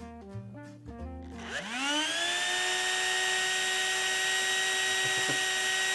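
A small electric motor spins up a 3D-printed centrifugal fan's impeller: a whine climbs steeply in pitch about a second and a half in, then holds as a steady high whine over a rush of air.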